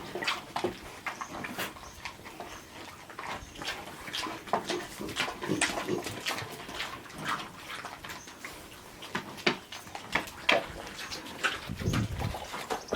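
Philippine native pigs eating feed mixed with molasses and a little water: irregular smacking, slurping and chomping, with a low thud near the end.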